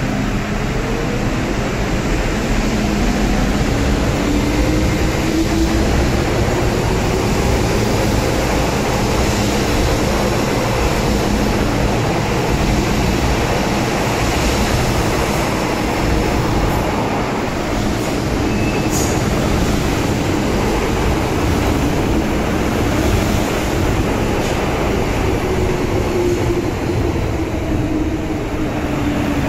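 Two MTR M-train electric multiple units running through a station over a steady rumble of wheels on rail. In the first part a traction-motor whine rises in pitch as one train accelerates away. Near the end a whine falls in pitch as the other train slows into the platform, passing close by.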